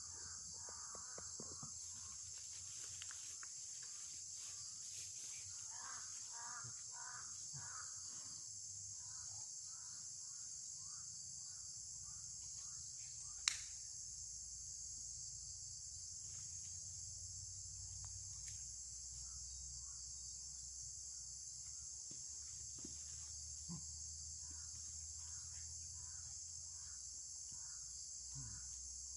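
A steady high-pitched insect chorus fills the air, with short runs of rapidly repeated calls now and then. One sharp click about halfway through.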